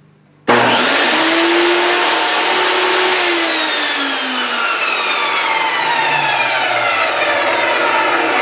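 A Bosch GTS1031 10-inch jobsite table saw starts with a sudden jump to full loudness and whines at speed. After a couple of seconds it is switched off, and its pitch falls steadily as the motor and blade spin down.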